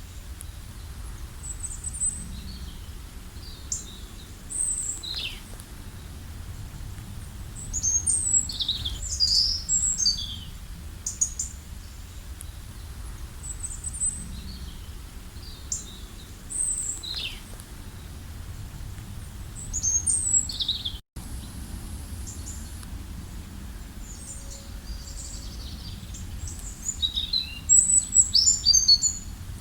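Several wild birds chirping and calling, short high chirps and trills scattered throughout and busiest about a third of the way in and near the end, over a steady low background rumble. The sound cuts out for an instant about two-thirds of the way through.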